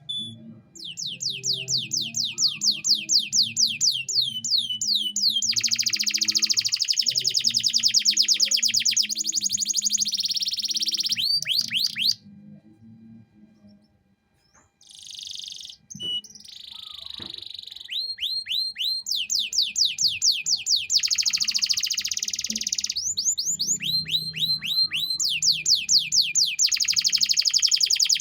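Male canary singing long, fast trills: runs of rapidly repeated high notes, some of them dense and buzzy, with a pause of about three seconds halfway through.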